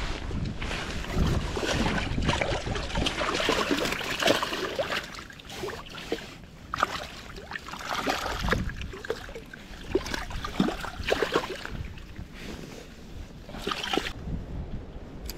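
Flowing creek water gurgling and splashing, with wind noise on the microphone.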